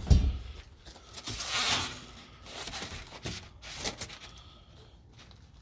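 Packaging and loose parts being handled and rummaged through: a rustle of paper or plastic about a second and a half in, with a few light knocks and clinks.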